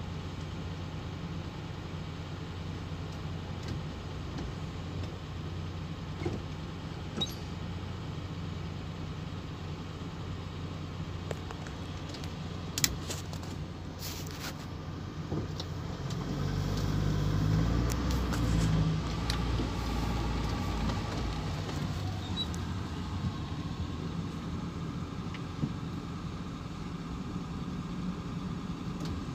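The 2.0-litre Ford Pinto engine of an Autosleeper Legend motorhome, heard from inside the cab, running at a crawl with a steady low hum that grows louder a little past halfway. A few light clicks and knocks come about a quarter of the way in and again near the middle.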